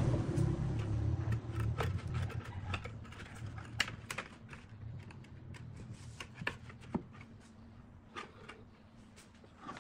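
Scattered light clicks and taps of hands working a flexible plastic sheet wrapped around a wooden block and held by metal hose clamps. Under them is a low rumble that fades away in the first couple of seconds.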